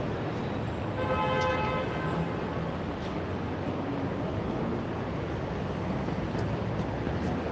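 Steady city street traffic noise, with a vehicle horn sounding once for about a second, about a second in.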